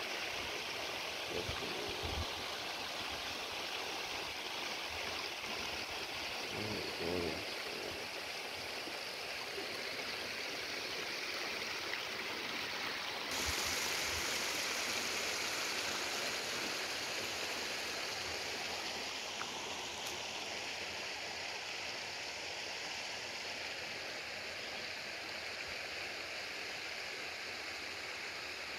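River water running over a stone ledge into a deep pool: a steady rushing sound that gets louder and brighter about halfway through.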